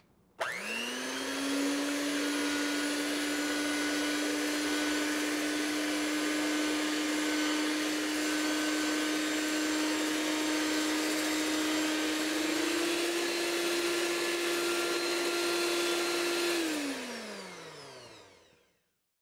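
Electric hand mixer with a whisk attachment whipping egg whites in a glass bowl. The motor spins up quickly and runs steadily, steps up slightly in pitch about twelve seconds in, then is switched off and winds down over about two seconds.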